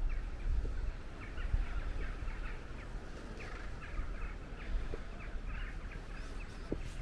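Birds calling in many short, overlapping chirps, with a low rumble of wind underneath.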